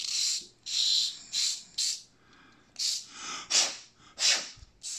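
A small hand file drawn back and forth over the edge of a tiny plastic model part: about eight short filing strokes, with a short pause around two seconds in.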